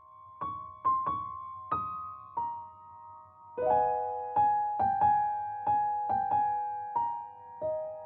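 Background music: a slow, gentle piano melody with struck notes that ring and fade. It starts as single notes and fills out into chords about a third of the way in.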